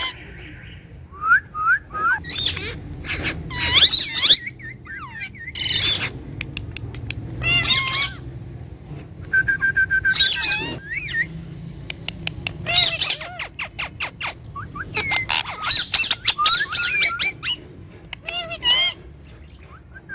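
Pet Psittacula parakeets chirping and squawking in quick, repeated calls that swoop up and down in pitch, with a steady trilled whistle lasting about a second about halfway through.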